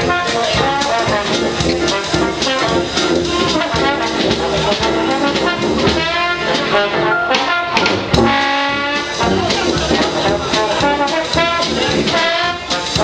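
Dixieland jazz band playing: trombone, trumpet and clarinet together in a busy ensemble, with some wavering held notes around the middle.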